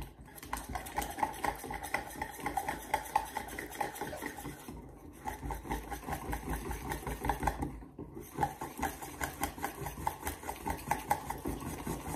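A utensil beating melted chocolate and egg in a stainless steel bowl: fast, rhythmic scraping strokes against the metal, several a second, with two short breaks about five and eight seconds in.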